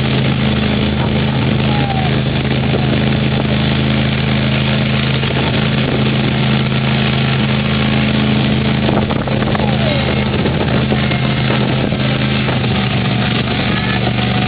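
Miniature kiddie train's engine running steadily while pulling the ride along, heard from aboard the passenger car as a constant low drone over road and ride noise. The drone changes slightly near the end.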